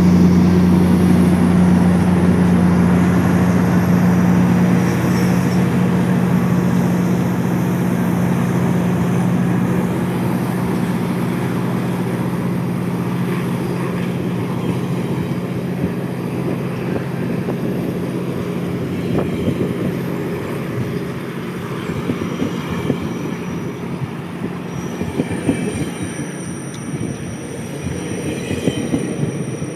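A GO Transit train pulling out, led by an MP40 diesel locomotive: the locomotive's steady low engine hum fades over the first twenty seconds as it draws away, leaving the coaches rolling past with a rumbling wheel clatter. Thin, high wheel squeal comes in over the last several seconds.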